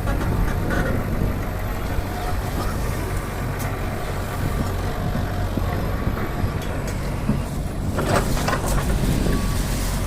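Heavy diesel engine of an excavator or dump truck running steadily under load. A short spell of louder rattling noise comes about eight seconds in.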